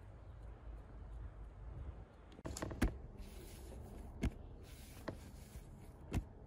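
A handful of sharp knocks and taps of hands and dough on a stone worktop while a long rope of dough is handled, about five in all with the loudest about three seconds in, over a faint steady low rumble.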